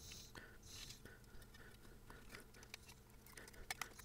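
Faint clicks and rustles of a small nylon cable tie being threaded and pulled through its ratchet by hand, with a quick run of sharper clicks about three and a half seconds in.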